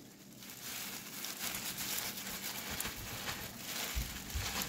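Chicken noodle soup being poured into a large glass bowl: broth splashing and slopping as the noodles slide in. A few low thumps come near the end.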